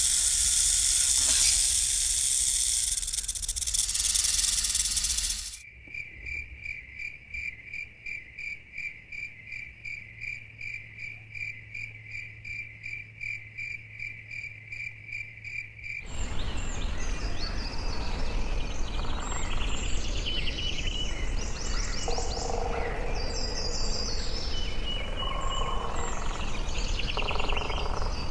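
A loud, steady snake hiss for about five seconds, cutting off into a high insect chirp pulsing evenly about three times a second; at about 16 seconds this gives way to rainforest ambience of varied bird chirps and calls over a steady insect background.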